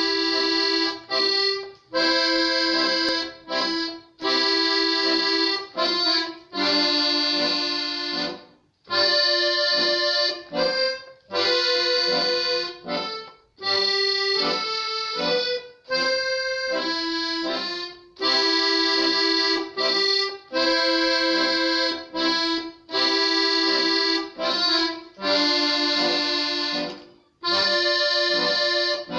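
Piano accordion played solo: a folk tune with melody over chords, played in short phrases broken by brief pauses.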